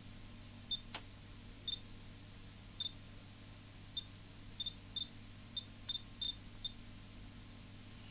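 Short, high-pitched key beeps from a Miniware DS213 handheld oscilloscope as its buttons are pressed, about a dozen at uneven intervals, some in quick pairs. A single sharp click comes about a second in.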